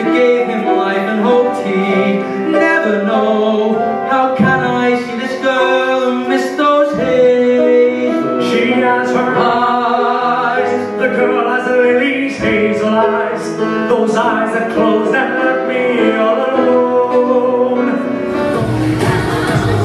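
Two young male voices singing a duet at microphones. About 18 seconds in it cuts abruptly to louder pop dance music.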